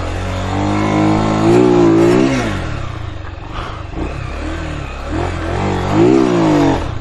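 Motorcycle engine revved hard twice, each rev rising and falling back, during wheelie pop attempts.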